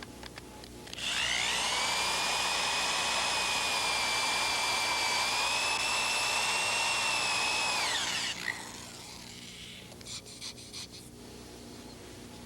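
Electric drill spinning up about a second in and running steadily with a high whine for about seven seconds, driving a Drill Out bit in reverse into a bolt broken below a flange. It then winds down, followed by a few light clicks.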